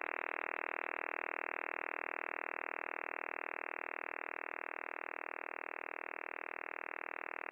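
Pulsed signal on the 20-meter HF band heard through a shortwave receiver: a rapid, even tapping rhythm over band-limited receiver noise. The uploader likens it to the 1970s 'Woodpecker' over-the-horizon radar.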